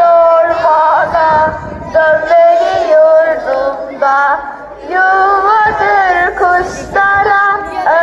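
Schoolchildren singing a song together in Turkish, held melodic notes with short breaks between phrases, picked up through a microphone.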